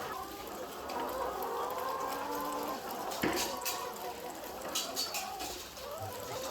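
A flock of chickens clucking and calling in many overlapping voices, with a few sharp clicks a little past the middle.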